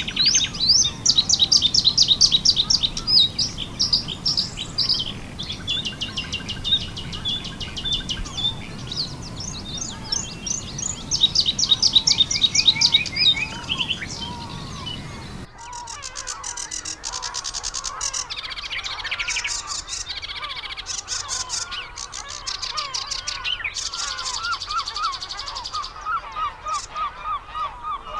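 Bluethroat singing, a varied song of fast high trills and buzzy repeated notes. About halfway through the sound cuts to other songbird song, and from about two-thirds through geese honk repeatedly beneath it.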